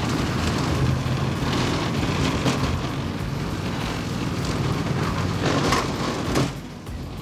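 Utility vehicle's engine running steadily as it tows a corrugated metal pig hut over grass, with the hut scraping and rattling along the ground. The noise drops off shortly before the end.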